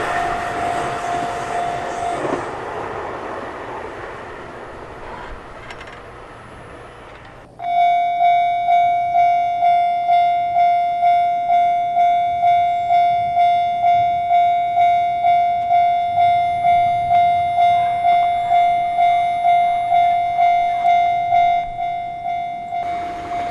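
A passing train fades away over the first few seconds. About seven seconds in, a Japanese level-crossing warning bell starts ringing, an even ding about twice a second, and a train's noise grows near the end.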